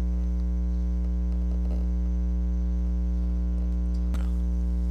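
Steady electrical mains hum: a low hum with a stack of evenly spaced buzzing overtones, with one faint click about four seconds in.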